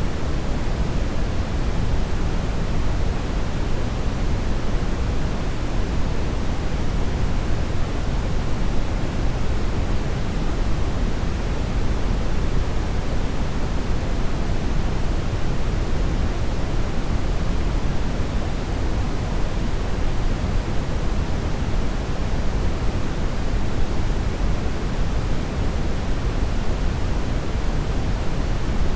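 Continuous synthetic brown noise: an even, unbroken rush with most of its weight in the low end, thinning out toward the highs.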